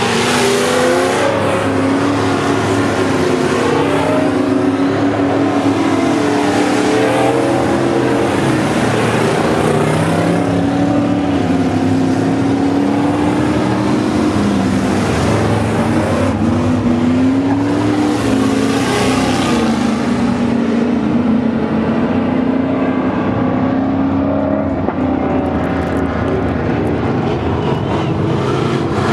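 Several V8 dirt-track stock cars racing together, their engines revving up and down through the turns.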